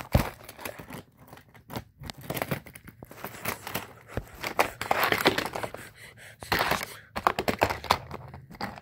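Die-cast toy cars and a plastic playset being handled: irregular clicks, taps and rustling, with rubbing noise on the phone's microphone.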